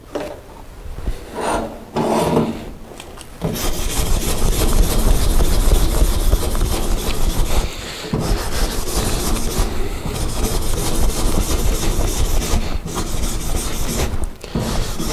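Hand wire brush scrubbing a steel plate: a continuous scratchy rasping that starts about three seconds in after a few short handling sounds, with a couple of brief pauses. It is the surface being cleaned before welding.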